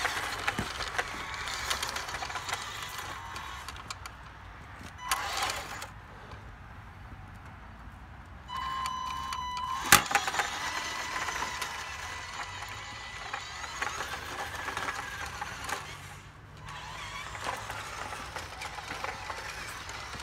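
Radio-controlled model Western Star dump truck driving over gravel and dirt: small electric drive motor whining under the crunch of its tyres. About halfway through, a short steady whine ends in a sharp click.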